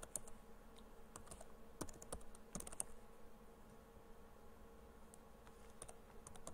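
Computer keyboard keys being typed, faint, in short scattered runs of keystrokes with pauses between, over a low steady hum.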